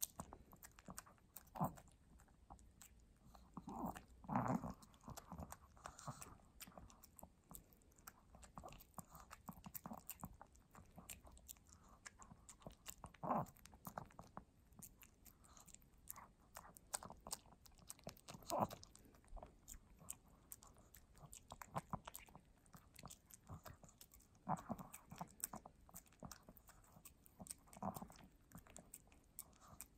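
Pomeranian eating wet dog food from a plate: quiet, intermittent wet chewing and licking smacks, with a few louder ones scattered through.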